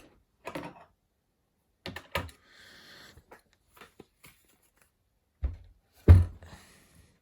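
Hands handling a Lorch watchmaker's-lathe transmission pulley unit: scattered light metallic clicks and a short scrape, then two heavier knocks near the end.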